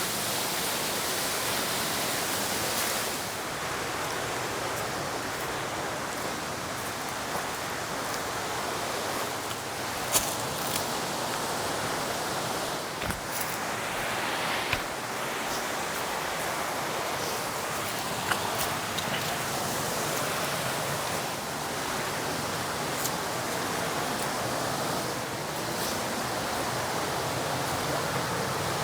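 Steady rushing of a mountain creek running over small cascades, with a few brief sharp knocks partway through.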